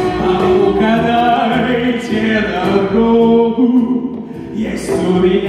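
Music with voices singing, holding long notes that shift from pitch to pitch.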